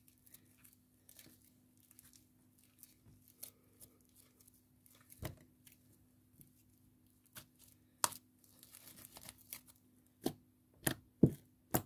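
Blue slime, softened with baby lotion, being stretched and pressed by hand on a tabletop: quiet sticky crackling with scattered sharp pops and clicks, coming closer together and louder in the last two seconds.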